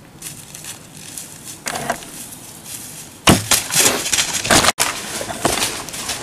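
A sharp crack about three seconds in, then loud crashing and crackling through dry leaves and brush: a whitetail buck bolting at the shot from a recurve bow.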